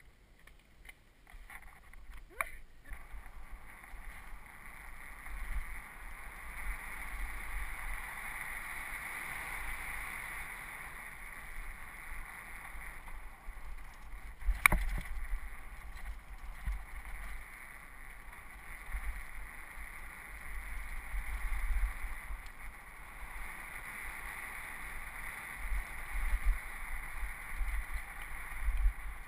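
Wind rush and tyre noise picked up by a helmet-mounted camera on a mountain bike rolling down a dirt forest trail, a steady rushing with irregular low rumbling jolts from the trail. A sharp knock about halfway through.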